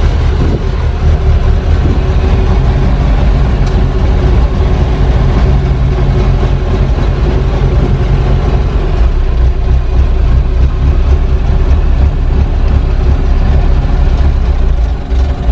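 1930 Ford Model AA truck's four-cylinder flathead engine idling steadily, freshly started after standing.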